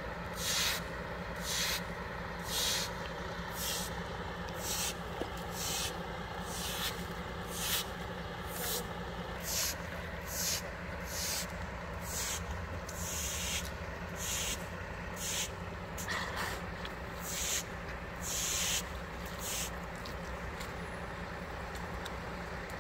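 Vehicle driving in heavy rain, heard from inside: steady engine and road noise under regular swishes about one and a half times a second from the windscreen wipers.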